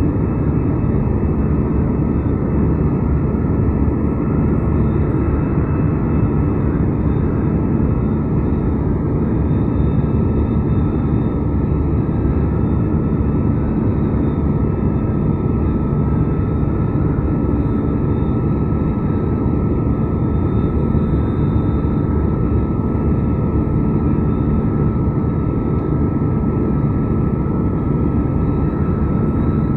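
Steady cabin noise of a jet airliner climbing out after take-off: engine drone and rushing airflow heard from inside the cabin, with a faint steady whine over it.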